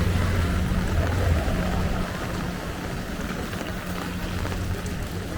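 Rainy street ambience: a vehicle engine running close by with a steady low hum that drops in level about two seconds in, over the even hiss of rain.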